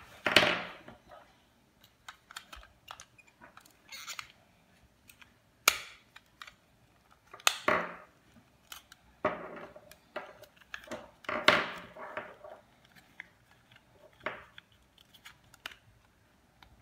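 Irregular sharp plastic clicks and knocks from a small handheld battery-powered bag heat sealer being handled as two AA batteries are fitted into its casing.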